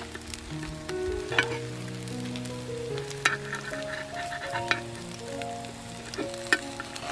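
Rice-flour batter sizzling in a hot multi-well ball-cake pan, with four or five sharp clicks of a metal spoon and knife against the pan as the cakes are prised out. Soft background music with held notes plays underneath.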